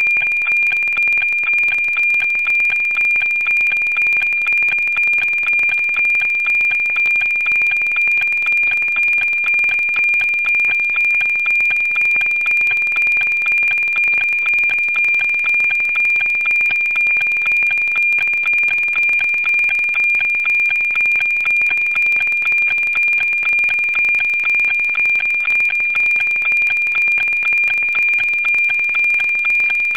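The NOAA-19 weather satellite's analogue APT image signal, received at 137.1 MHz and demodulated to audio. It is a steady high tone with an even tick-tock about twice a second, one beat per scanned image line, while the signal is being decoded into a weather picture.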